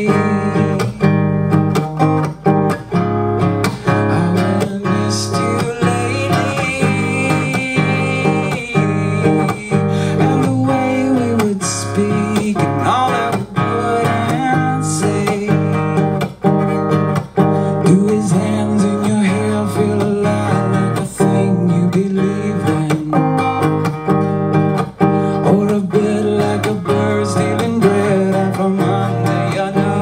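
Live solo acoustic guitar, plucked and strummed, with a man singing softly over it.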